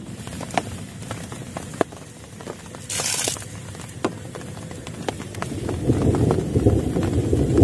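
Rain drops tapping irregularly on a plastic tarp, with a brief hiss about three seconds in and a louder, deeper rushing noise building from about halfway through.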